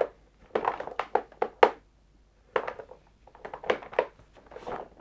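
Plastic hobby paint pots being picked up, shuffled and set down on a bench: a run of small clicks, taps and knocks in four or five quick clusters.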